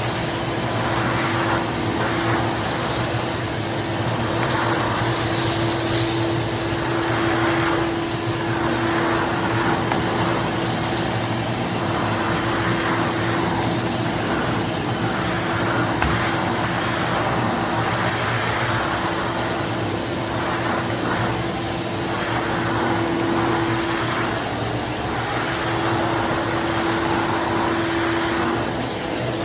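Craftsman 16-gallon, 6.5 peak HP wet/dry shop vacuum running steadily: a constant motor hum under a rush of air through the hose that swells and fades every second or two as the nozzle works.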